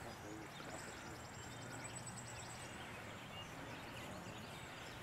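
Quiet outdoor background with a bird's high, rapid trill lasting about two seconds, and a faint low hum in the middle.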